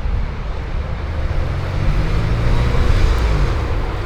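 A car being driven, with steady engine and road rumble heard from inside; the engine note rises slightly around two seconds in.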